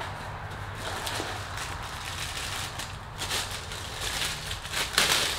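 Clear plastic bag crinkling and rustling as a carburetor is unwrapped by hand, in irregular crackles with the loudest burst near the end.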